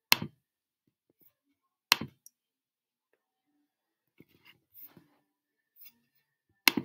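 Two sharp computer mouse clicks about two seconds apart, then a few faint taps, and computer keyboard typing starting near the end.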